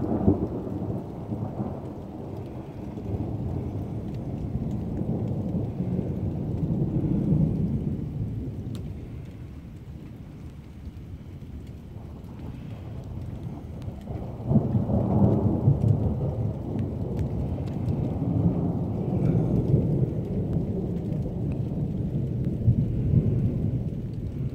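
Thunder from a nearby lightning strike: a loud crack at the start rolling into a long low rumble that fades after about nine seconds, then a second loud rumble breaking out about fourteen seconds in and rolling on.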